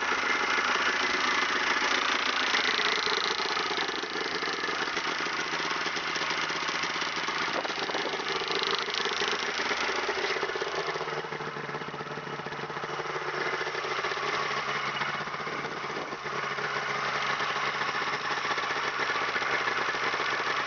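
1996 Polaris Ultra 680 snowmobile's two-stroke triple engine idling steadily after being started.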